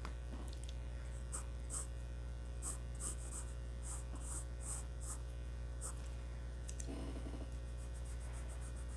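Graphite pencil drawing short, light strokes on drawing paper, a soft scratch about two to three times a second, turning to quicker rubbing strokes near the end as an eraser works the lines. A steady low hum runs underneath.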